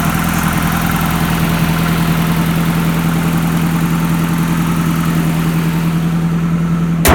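Toyota Camry All-Trac's four-cylinder engine idling steadily with a loud, even exhaust hum; the exhaust still needs a muffler. A sharp click right at the end as the sound cuts off.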